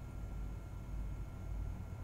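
Quiet room tone: a steady low rumble with a faint thin whine above it.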